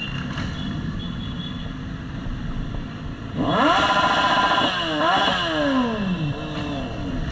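A motorcycle engine revved hard about halfway through, its pitch climbing, dipping and climbing again twice in quick blips, then winding down over about a second, over a steady background of idling engines.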